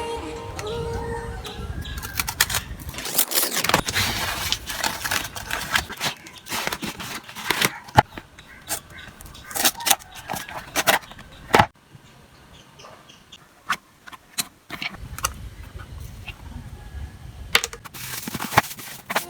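Unboxing sounds of an electric chopper: packaging and parts being handled, with irregular sharp clicks, taps and crackly rustling, quieter for a few seconds past the middle.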